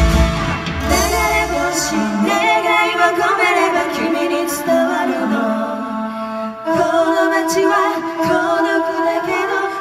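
A female vocal duo singing live through a club PA. The loud band accompaniment with bass and drums drops away under two seconds in, leaving the voices almost unaccompanied.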